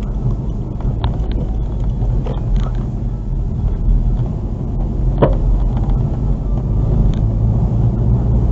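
Honda Civic Type R FK8 driving with a steady low road-and-engine rumble, and a single sharp clunk about five seconds in: the 'gon' knock that sounds from the rear of the car when turning left or crossing bumps, its cause not yet known.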